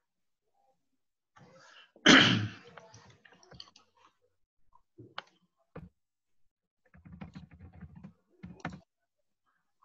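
Computer keyboard typing and clicks picked up by an open video-call microphone, with one loud thump about two seconds in and a quick run of key taps near the end.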